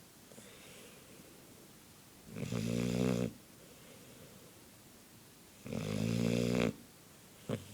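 Labrador snoring in its sleep: two loud snores about three and a half seconds apart, each lasting about a second, with a short sharp sound near the end.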